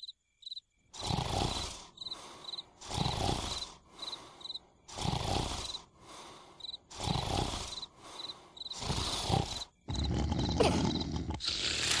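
Cartoon snoring: rasping snores in a steady rhythm, a longer loud one and a shorter quieter one in turn, about one pair every two seconds, while crickets chirp throughout. From about ten seconds in the snoring turns into a louder, almost unbroken rasp.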